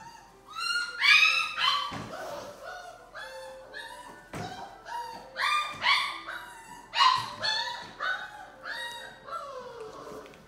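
Six-week-old Labrador Retriever puppies play-barking and yipping in a quick run of short calls, one after another.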